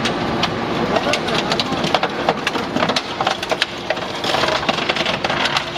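Hydraulic scrap metal baler-shear at work: scrap metal crunching and clanking in rapid, irregular knocks over a steady machine drone.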